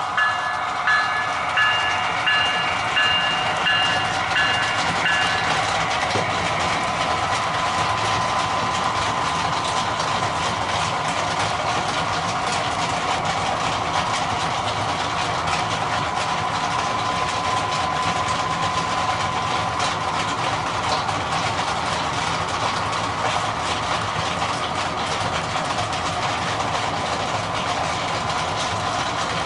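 Model train running past, with a steady rumble and hum from the locomotive and wheels on the track. A repeating bell-like ring, about two strikes a second, sounds over it for the first six seconds or so.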